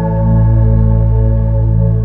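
Background music: slow ambient music of sustained organ-like chords over a deep bass, the chord changing at the end.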